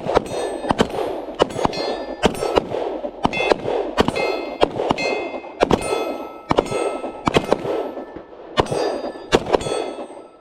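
Pistol shots from several shooters firing while walking forward, coming irregularly about two a second and sometimes overlapping, many with a short ringing tail.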